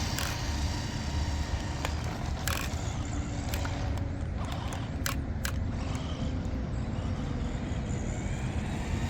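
JJRC Rigid C8805 1/14-scale RC desert truck driving on wet ground, its brushed electric motor running. Scattered sharp clicks and knocks sit over a steady low rumble.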